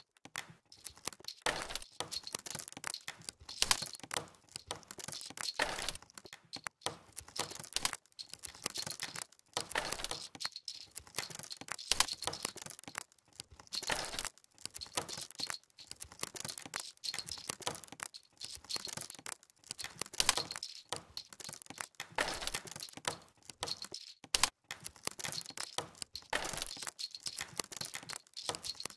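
Ambient beat track built on campfire crackling: dense crackles and pops, with a low thump about every two seconds.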